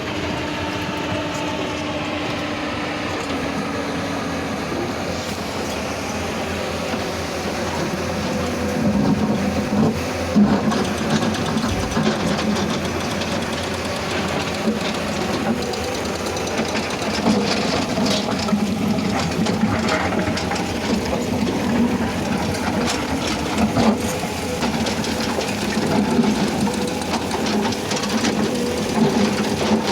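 Heavy diesel construction machinery running. Its engine tone falls in pitch over the first few seconds, then it runs rougher with scattered metallic knocks and clanks.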